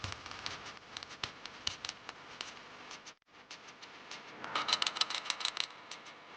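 Irregular light clicking and rattling, like hand tools and small parts being handled during clutch work, growing denser about two thirds of the way through, with a brief break near the middle.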